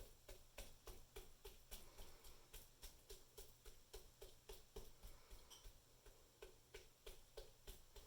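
Faint light tapping, about three taps a second, keeping an even pace.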